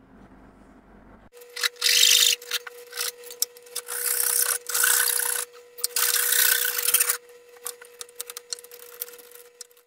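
Hand saw cutting a block of hardwood in several long back-and-forth strokes, then shorter, lighter scrapes and ticks of a chisel paring wood near the end.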